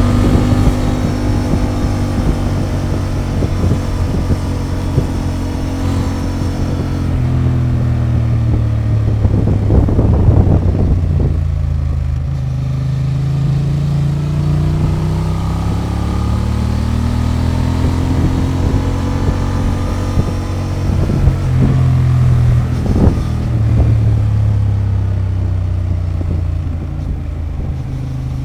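Honda XL750 Transalp's parallel-twin engine on its stock exhaust, running under way with its pitch slowly rising and falling as the throttle is opened and closed. A brief rush of rougher noise comes about ten seconds in and again shortly before the end.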